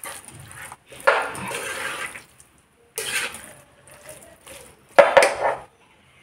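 Spatula stirring raw chicken pieces through thick, wet masala in a nonstick kadai: a few separate scraping strokes, the loudest about five seconds in.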